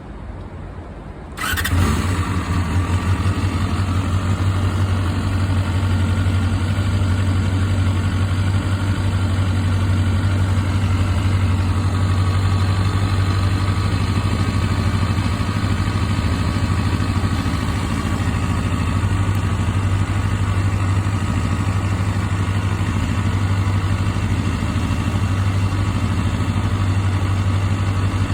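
Honda CBR250RR MC22's 249 cc inline-four engine starting up about a second and a half in, then idling steadily. The owner is unsure whether the idle holds an abnormal engine noise.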